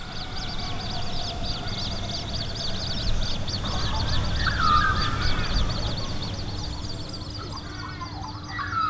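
Birds calling in a dawn chorus: rapid high chirping throughout, with louder warbling calls about four seconds in and again near the end, over a low rumble.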